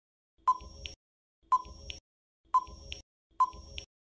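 Countdown timer sound effect: a short, sharp beep-like tick once a second, four times, each with a brief ringing tail.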